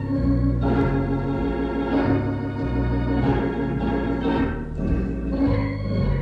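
Hammond B3 organ playing jazz: held chords over a bass line that changes note about every second.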